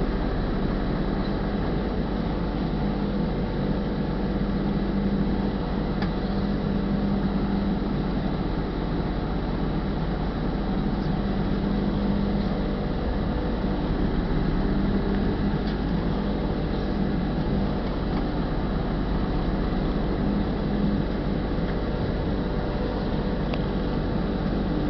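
Truck's diesel engine running at low speed, heard from inside the cab as a steady hum whose low note swells and eases a few times.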